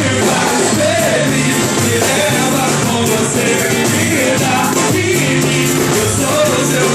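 A band playing live: drum kit, bass guitar and viola keeping a steady swinging groove, with a voice singing over it.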